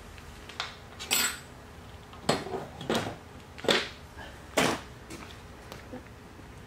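A series of sharp steel-on-steel clinks and knocks, the loudest five coming roughly a second apart, as the steel pin and mounting parts of an excavator thumb are worked into place on the stick.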